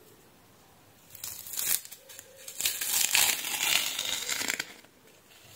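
Adhesive backing sheet being peeled off the underside of a solderless breadboard: a crackling, tearing noise in two spells, a short one about a second in and a longer, louder one from about two and a half to four and a half seconds.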